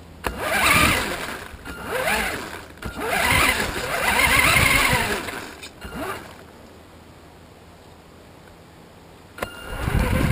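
FTX Enrage 1/10 RC buggy's motor and drivetrain, heard from a camera mounted on the car, in three bursts of driving over grass, the pitch rising and falling as the throttle is worked. About six seconds in the car stops and it goes quiet, until a sudden loud start near the end.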